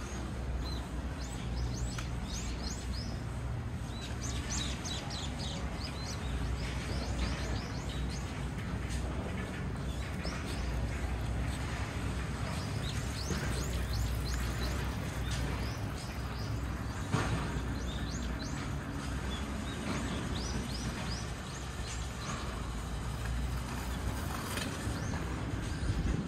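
Small birds chirping with many short, high calls in quick clusters, over a steady low rumble of traffic.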